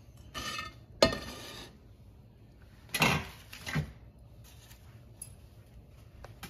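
Metal cookware clanking as the lid goes onto the biryani pot to seal it for dum cooking. There is a sharp clank about a second in with brief ringing, then a few more clatters around three seconds in.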